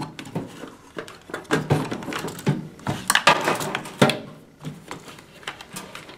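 Parts being handled inside a gutted microwave's sheet-metal cabinet: a hard black plastic baffle and wiring connectors knocked and shifted, giving an irregular string of clicks, knocks and rattles.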